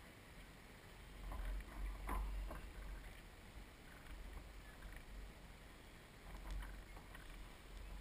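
Water splashing and lapping against the hull of a Soling One Meter radio-controlled model sailboat under sail, over a low rumble. A few louder slaps come about two seconds in and again near the end.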